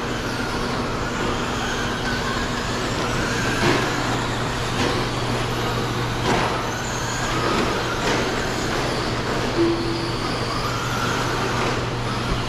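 Electric Traxxas Slash RC short-course trucks racing on a dirt track: motor whine rising and falling with the throttle and a handful of sharp knocks, over a steady low hum.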